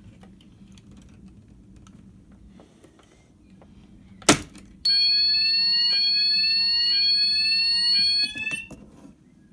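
A sharp click, then a conventional fire alarm system's sounders going off in a test activation: a loud repeating rising sweep about once a second over a steady high-pitched tone. They sound for about three and a half seconds, then cut off with a few clicks.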